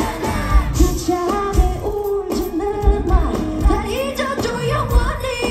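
Live pop song played through a festival PA: a woman singing over a band with a steady kick-drum beat.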